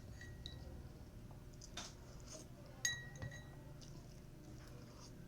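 Eating utensil clinking against a dish a few times while eating soup. The loudest clink, about three seconds in, rings briefly.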